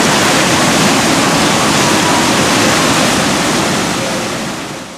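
Water of the Ganges river rushing steadily, fading out near the end.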